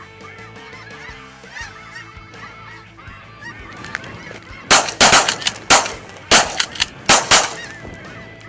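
A flock of light geese calling, many overlapping honks. About halfway through comes a rapid string of several loud shotgun shots over roughly three seconds.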